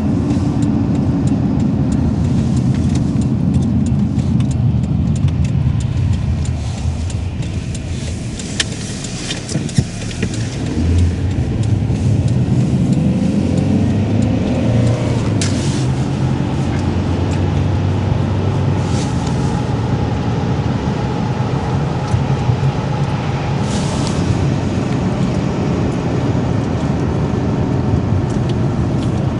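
A car's engine and road noise heard from inside the cabin while driving: a steady low rumble that drops off about eight seconds in and builds again a few seconds later, with a few short hisses.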